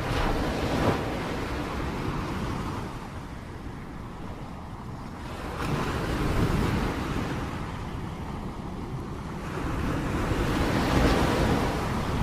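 Rain falling as a steady hiss that swells and eases in slow surges, about three times.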